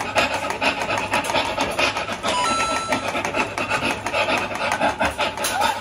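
Coin-operated mechanical dog machine making a harsh, rapid rasping noise, the scary sound the game makes as its nerve test runs. A short beep sounds about halfway through.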